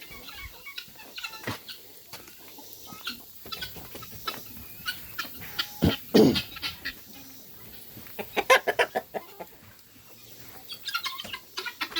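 A chicken clucking, repeated short calls with a louder cluster about halfway through and again a couple of seconds later.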